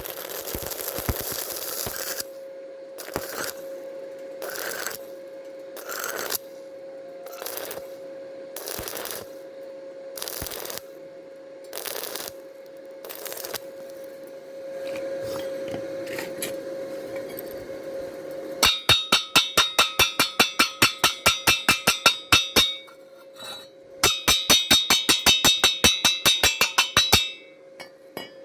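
Weld cleaning on thin steel square tube. First come short scraping strokes about one a second, then two runs of rapid metallic clinks, about six a second, typical of a chipping hammer knocking slag off a stick weld. A steady hum runs underneath.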